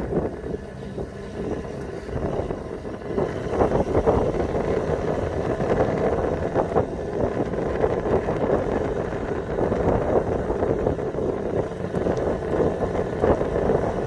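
A vehicle driving along a road: a steady rumble of engine and road noise, with wind buffeting the microphone.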